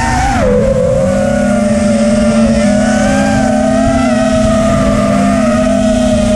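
Brushless motors of an FPV freestyle quadcopter whining with the throttle. The pitch drops about half a second in, then holds fairly steady with small swells.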